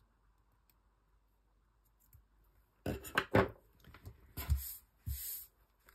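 Handling sounds after a near-silent start: a few sharp clicks and knocks from small metal scissors about three seconds in, then two short rustles as hands work the doll's ponytail.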